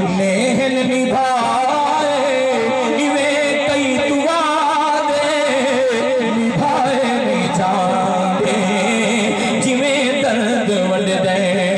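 A man's voice singing a Punjabi devotional verse in melodic chanting style into a microphone, amplified through a PA, with long held notes that waver in pitch.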